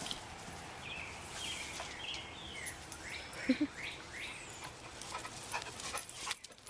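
Small birds chirping repeatedly over a steady outdoor background hiss, with a few sharp clicks near the end.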